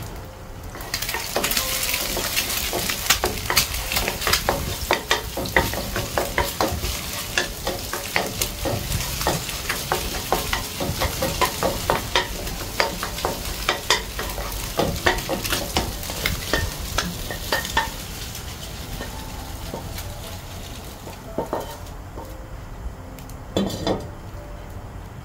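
Beaten eggs frying in hot oil in a pan, sizzling as a spatula stirs them, with frequent quick scrapes and clicks of the utensil against the pan. The sizzle starts about a second in, dies down after about eighteen seconds, and two single knocks follow near the end.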